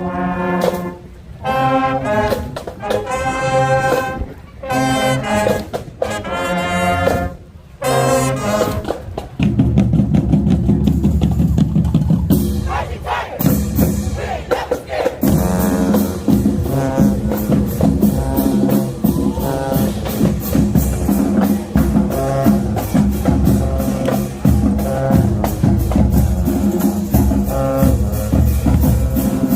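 High school marching band's brass section blasting a run of about five held chords, with short breaks between them. About nine seconds in, the full band comes in with drums and plays on to a steady, driving beat.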